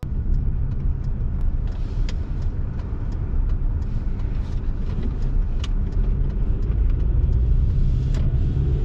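Steady low rumble of a moving car, with a few faint clicks.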